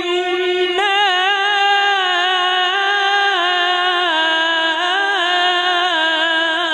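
A man's voice in melodic Quran recitation, holding one long note and ornamenting it with wavering melismatic turns.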